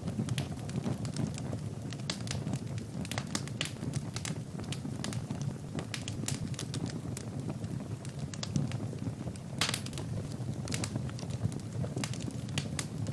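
Wood fire burning in a fireplace, crackling and popping in irregular sharp snaps over a steady low rumble of the flames.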